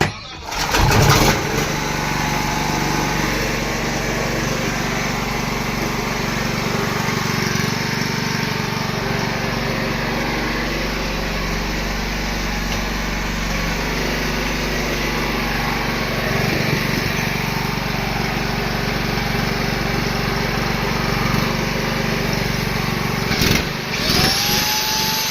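STALKER SPG 2700 petrol generator's small single-cylinder four-stroke engine catching about a second in and then running steadily, on its first run after a major engine overhaul. Near the end a higher whine rises and then holds over the engine.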